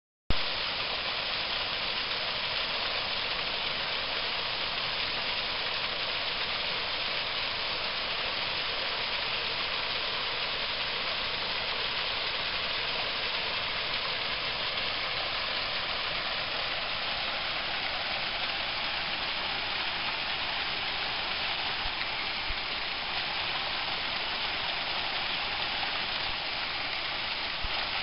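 Small mountain brook tumbling over rocks in a little waterfall: a steady, even rush and splash of water that cuts in abruptly just after the start.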